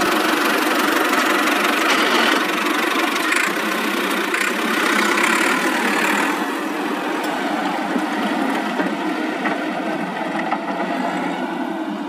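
Tractor engine idling steadily, a little quieter in the second half.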